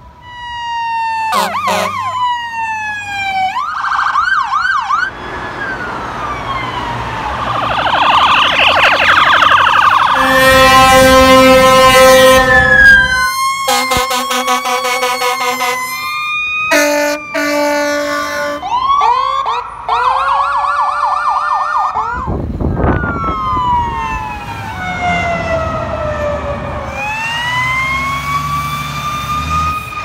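Fire engine electronic sirens sweeping up and down, switching between a slow wail and a fast yelp, with two sirens overlapping at times. Around the middle come long, steady air-horn blasts with short breaks between them.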